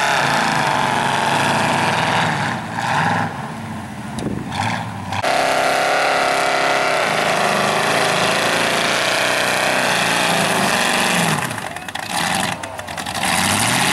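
Pickup truck engines revving hard as the trucks churn through deep mud, the pitch rising and falling. The engine noise drops away twice for a second or two.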